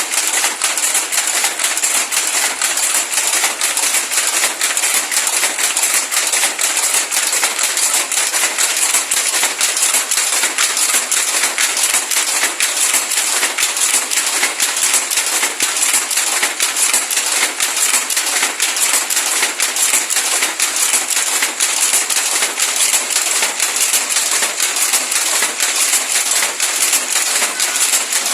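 Mechanical weaving loom running, a dense, continuous rapid clatter of metal clicks at an even level.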